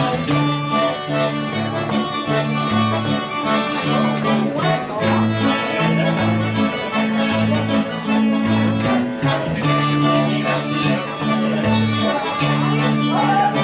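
Live band playing a traditional dance tune, the accordion leading over guitar and a steady alternating bass line.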